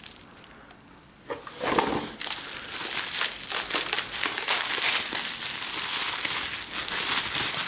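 Plastic bubble wrap crinkling as it is unwrapped and crumpled by hand. The crinkling starts about a second in and goes on as a dense, crackly rustle.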